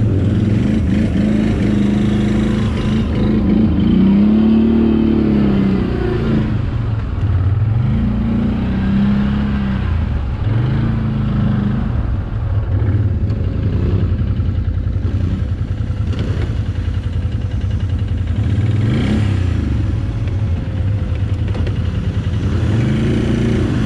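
ATV engine under throttle on an off-road ride, its pitch rising and falling every few seconds as the rider opens and closes the throttle.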